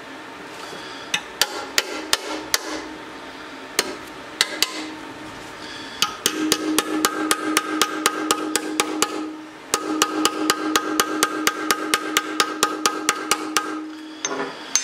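A small hammer taps a tack-welded steel patch into the corners of a motorcycle tank to make it fit before more tacks go on. A few scattered taps come first, then a quick run of about four taps a second with the tank ringing a steady tone under the blows, broken by a short pause partway through.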